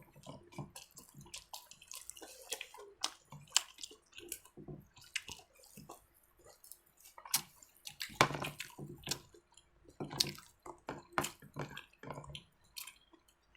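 Close-up eating sounds: wet chewing and lip smacks as a mouthful of food is eaten, in irregular short clicks.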